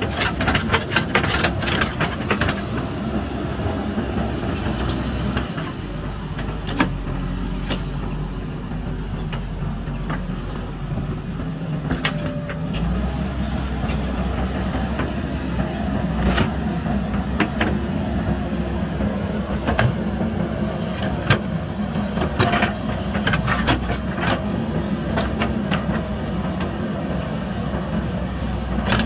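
Backhoe loader's diesel engine running steadily under load, with irregular sharp metallic clanks and knocks from the bucket and arm working broken concrete.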